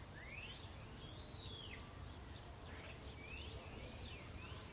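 Faint birdsong: a long arching call about a second in and several short rising chirps later on, over low steady background noise.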